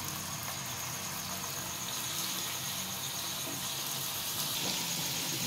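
Marinated chicken pieces sizzling in hot oil in a flat pan as more are laid in by hand, a steady hiss that grows slightly louder.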